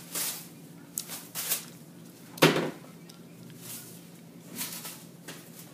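Baking tray and paper being handled at the stovetop: scattered short rustles and clicks, with one louder knock about two and a half seconds in.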